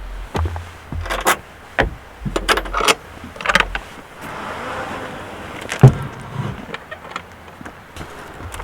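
Gear being handled: scattered knocks, clatters and rattles, with one sharp, loud knock about six seconds in.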